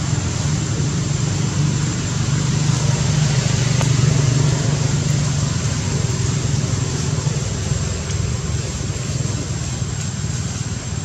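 Steady low rumble and hiss of a running motor vehicle engine, swelling a few seconds in and easing toward the end, with a thin steady high tone above it.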